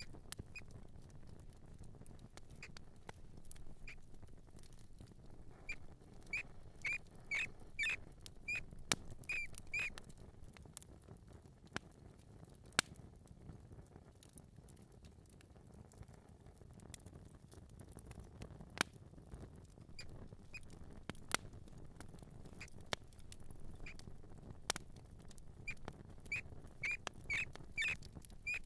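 Mouse squeaking in two runs of quick, short high chirps, about six seconds in and again near the end. Between the squeaks come light pattering and scattered sharp clicks, over a faint low rumble.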